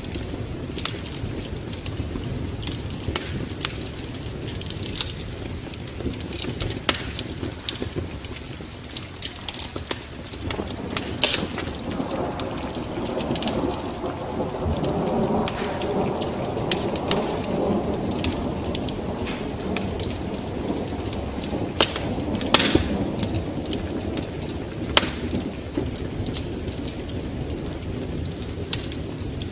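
Wood fire crackling in a fireplace: a steady rush of flames with irregular sharp snaps and pops. A fuller rushing swells for several seconds midway.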